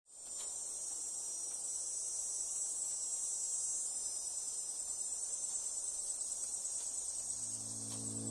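A steady high-pitched hiss, with music fading in underneath about seven seconds in.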